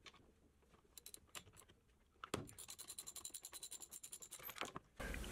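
Hand ratchet clicking quickly and evenly, about nine clicks a second, as a spark plug is unscrewed from a small two-stroke engine, after a few scattered clicks and a sharper knock as the plug breaks loose.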